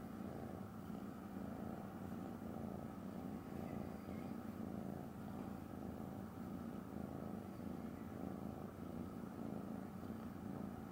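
Ragdoll cat purring steadily while being stroked on the head, a soft, even rumble of contentment.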